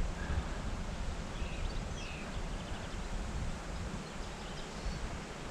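Outdoor ambience: a steady low rumble of wind on the microphone with rustling, and a few faint bird chirps around the middle.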